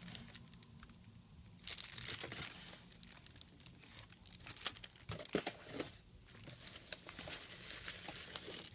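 Packaging being handled and unwrapped, crinkling and rustling in irregular crackles, loudest about two seconds in.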